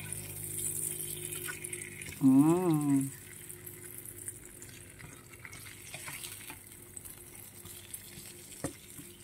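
Thin slices of Serrano ham sizzling in oil in a nonstick frying pan while a spatula turns them over. About two seconds in, a short hummed voice rises and falls in pitch, and a single sharp tap comes near the end.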